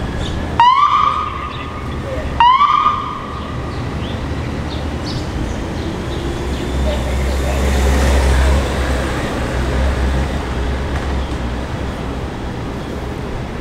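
Two short electronic siren whoops from a police motorcycle, each a quick rise in pitch then held for about half a second, the second about two seconds after the first. Later a low engine rumble swells and fades as a vehicle passes, over steady street noise.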